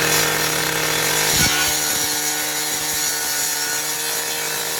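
A motor-driven tool or machine running steadily with a constant hum and a rasping, sawing-like noise, with a single knock about a second and a half in.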